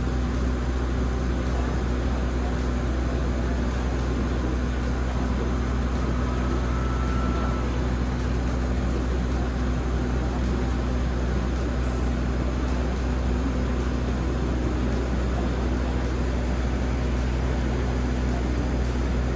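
A boat's engine running steadily, a constant low drone with a steady hum.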